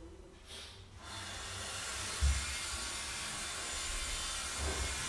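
A steady hiss comes in about a second in and holds, with a couple of dull low thumps.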